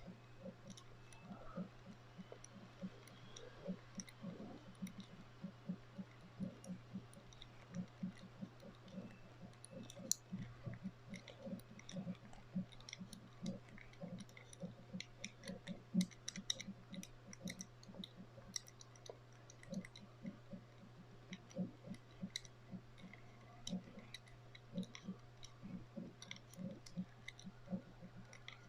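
Number wheel of a Master Lock Excell four-digit combination padlock being turned digit by digit, each detent giving a small, faint click, about two or three a second. The shackle is held pulled down so the correct digit shows itself as a loose, wobbly wheel.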